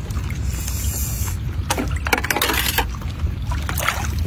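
Water sloshing and splashing around people sitting chest-deep in a pond, in short swishes, over a steady wind rumble on the microphone.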